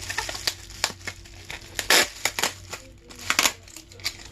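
Packaging being handled and opened: irregular crinkling and rustling, with the loudest crackle about two seconds in and another cluster near the end.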